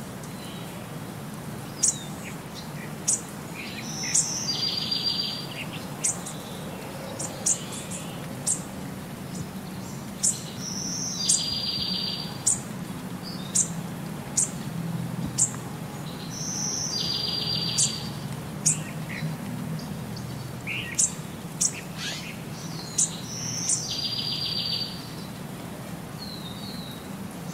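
Birds chirping: short high chirps, with a buzzy trill that comes back about every six and a half seconds, over a low steady hum.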